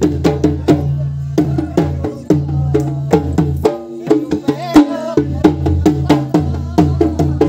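Karam folk dance music: a barrel-shaped hand drum beaten in a fast, even rhythm of about five strokes a second over a deep sustained bass, with a short rising-and-falling melodic phrase about halfway through.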